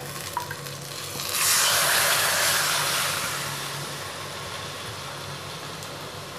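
Water poured into a hot pot of frying masala and potatoes: a sudden loud hiss and sizzle about a second in, fading slowly as the water settles. Before it, the frying masala crackles faintly.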